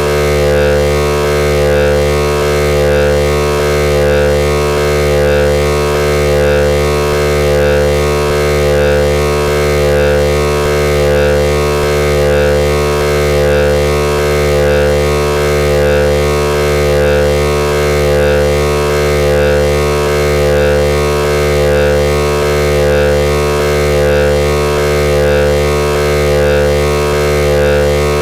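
Triple Cap Chaos chaotic oscillator module with its X and Y outputs mixed, giving a loud, dense synthesizer drone of many held pitches with a slow, even throb.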